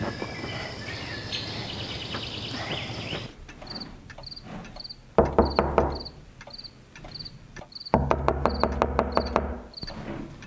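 Knocking on a door in two bouts of quick raps, the first about five seconds in and a longer one about eight seconds in, over a cricket chirping at a steady pace.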